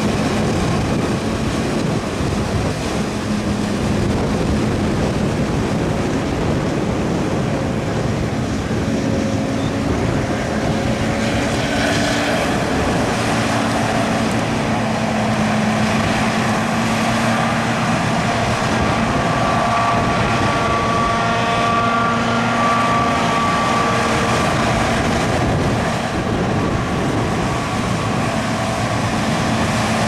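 John Deere self-propelled forage harvester running under load while chopping corn for silage: a steady heavy drone with a few held whining pitches over it.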